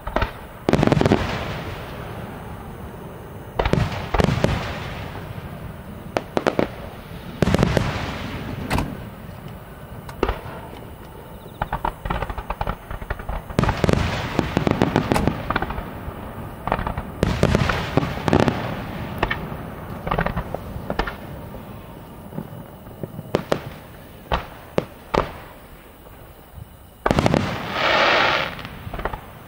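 Aerial firework shells bursting one after another in a display finale: deep booms that rumble and echo, with sharp reports and crackling between them. A dense, loud volley comes near the end.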